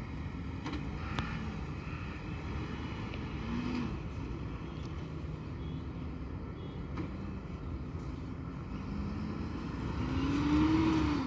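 Diesel engine of a recycling garbage truck running steadily, its pitch swelling up and back down briefly a couple of times as it revs, with a louder, longer rev near the end.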